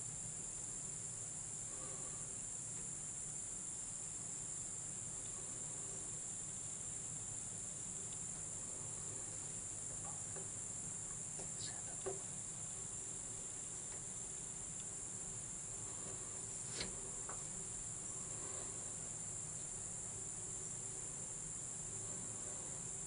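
Steady, high-pitched insect chorus, with a few faint clicks around the middle.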